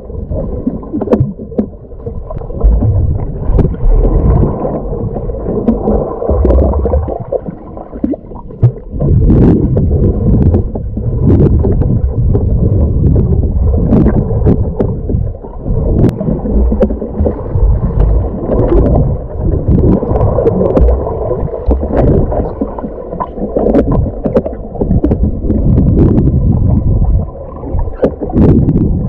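Muffled underwater rumble and gurgling of water moving around a camera in a waterproof housing as a diver swims, with scattered small clicks and knocks.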